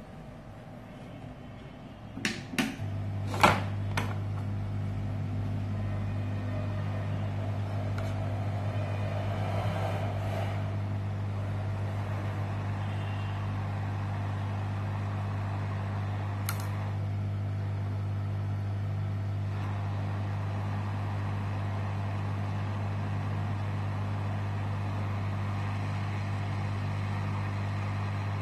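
Hot air rework gun starting with a few clicks a couple of seconds in, then its blower running steadily with a low hum and rushing air while it reflows components back onto the board.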